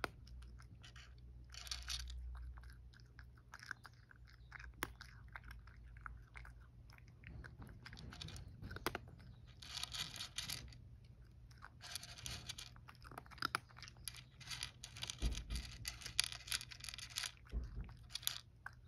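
A cat crunching dry kibble: runs of rapid crisp crunches, with short quieter pauses between the bursts of chewing.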